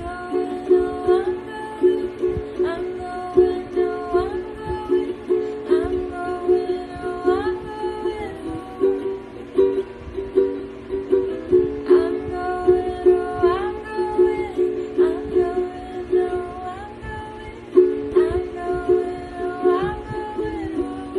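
A ukulele strummed in chords while a woman sings a slow melody over it in short phrases, with a pause in the singing partway through.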